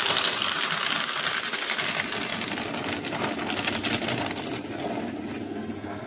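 Deli cross-cut paper shredder running and cutting paper: a dense, fast rattling shred that fades gradually towards the end.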